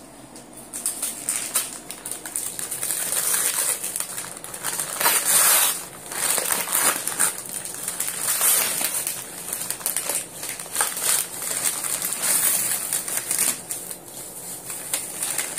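Crinkly wrapping rustling and crumpling as a gift package is pulled open by hand, in an irregular run of rustles with a louder stretch about five seconds in.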